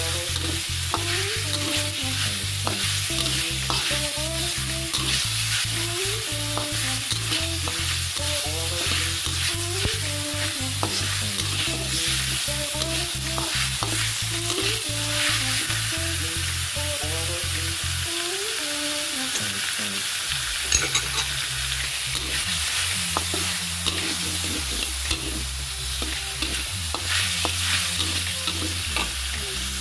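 Sliced onion and garlic sizzling in hot oil in a metal pan, with a metal spatula repeatedly scraping and stirring against the pan. Music plays quietly underneath.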